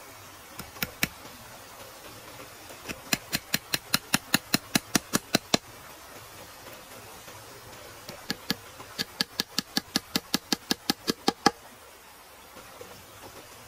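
Sharp knocks: a few single ones, then two quick even runs of about five strikes a second, each lasting a few seconds, over a steady low hiss.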